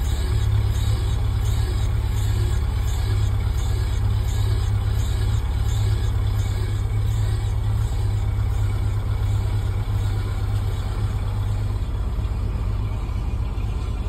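An engine idling steadily, a loud, even low hum.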